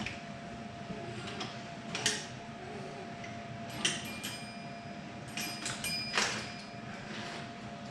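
Small clicks and knocks of wooden toy train track and cars being handled, three sharper ones about two seconds apart, over a faint steady high hum.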